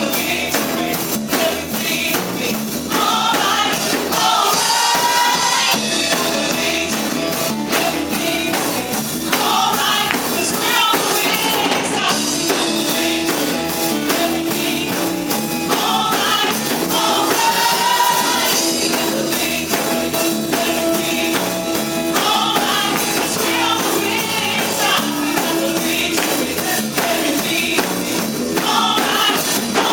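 Contemporary worship music: a band with a steady drum beat, and voices singing phrases that come back every few seconds.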